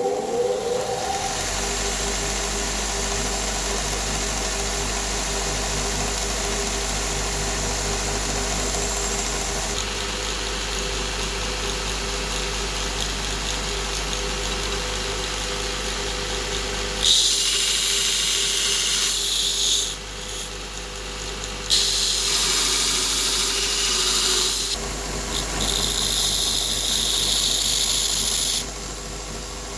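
A belt grinder built on a 550 W AEG bench grinder motor spins up and runs steadily with a hum. A little over halfway through, work is pressed to the belt in three grinding passes, each a loud hiss with short breaks between.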